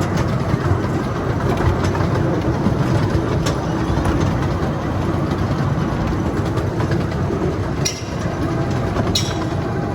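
Zoo train running along its track, heard from aboard: a steady rumble and rattle of the cars, with a few sharp clicks.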